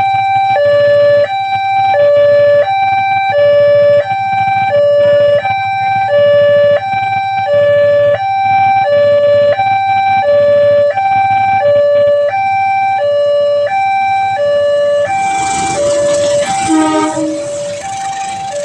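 Railway level-crossing warning siren sounding: a loud electronic two-tone alarm alternating evenly between a lower and a higher pitch, each held for about two thirds of a second, warning that a train is approaching. Near the end a brief burst of noise with a lower tone breaks in over it.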